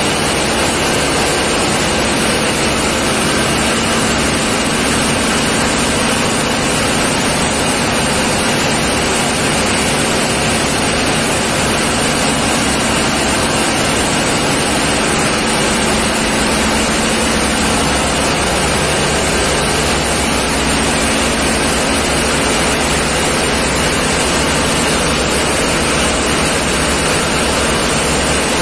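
Loud, steady din of running diesel machinery inside a tugboat's engine room: an even wash of engine noise with a low hum under it, unchanging throughout.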